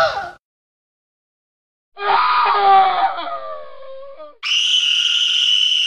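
Dubbed-in cartoon monster screams: a shrill cry cuts off just after the start, then after dead silence a loud scream falls in pitch about two seconds in, followed by a shrill steady shriek that stops suddenly.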